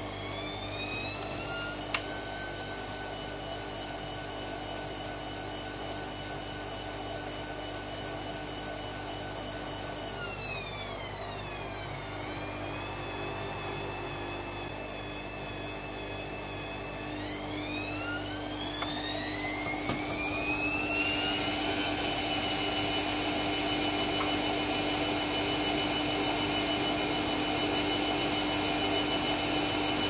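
Bush WMDF612W washing machine's drum motor whining as it tumbles a sudsy wash load. The whine rises at the start and holds, winds down about ten seconds in and runs slower for several seconds, then rises again and holds louder for the rest.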